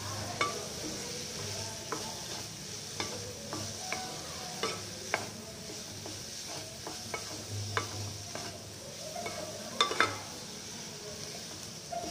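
Cauliflower, green peas and tomato frying with a steady sizzle in a non-stick kadai as a spatula stirs and scrapes through them. Light scattered knocks of the spatula on the pan, with a louder pair about ten seconds in.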